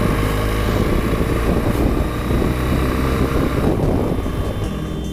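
BMW R1200 GS flat-twin engine running steadily while the motorcycle is ridden along a road, with wind rushing over the onboard camera's microphone.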